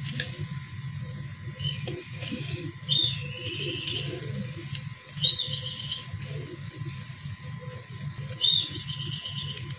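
Hands crumbling and squeezing a damp-dry sand and cement mix, with soft gritty crunching as it breaks and falls. A bird chirps four times, about two seconds apart, louder than the crumbling, over a steady low hum.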